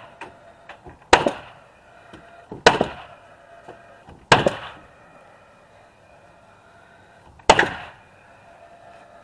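Paslode framing nailer firing nails through OSB sheathing into the wall studs: four sharp shots, unevenly spaced, the last after a pause of about three seconds.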